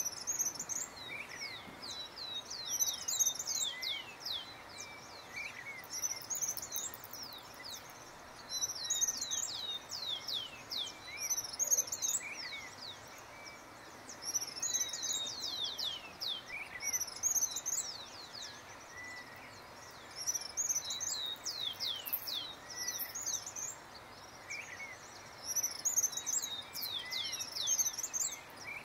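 Songbirds singing: a bout of quick, high, falling notes repeats every few seconds, with softer lower calls in between, over a steady background hiss.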